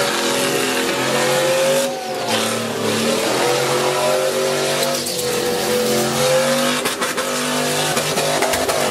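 Chevrolet Silverado pickup's swapped 5.3-litre LS V8 held near redline while the truck spins donuts, a steady high engine note over the hiss and squeal of the spinning rear tyres. The note sags briefly about two seconds in and again about five seconds in.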